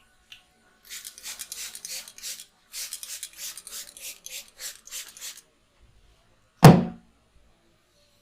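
Head massage: a quick run of short rubbing strokes of hands over hair and scalp, several a second, for about four and a half seconds, then a pause and one sudden loud smack about two-thirds in.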